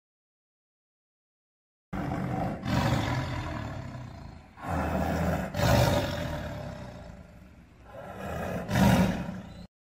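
A big cat roaring: a series of deep, rough roars starting about two seconds in.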